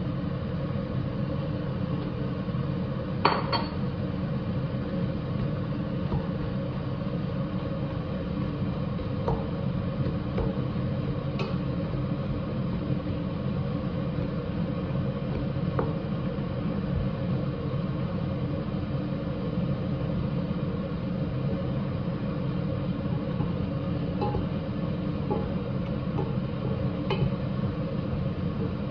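Wooden spatula stirring fried rice and cabbage in a stainless steel pot, knocking against the metal with a few sharp clinks, the loudest about three seconds in. Under it runs a steady low hum.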